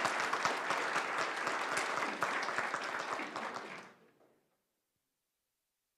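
An audience applauding: many hands clapping together, dying away about four seconds in.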